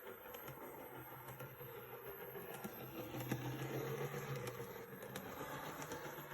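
Small electric motor and gearing of a narrow-gauge model locomotive running on its track: a steady low hum that swells a little midway, with a few faint clicks.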